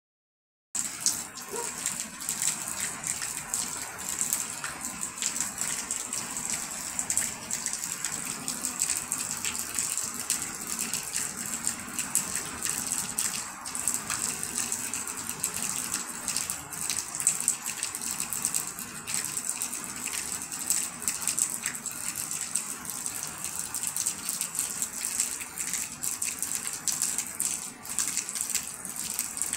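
Steady rain falling, a continuous hiss dotted with many separate drops and splashes.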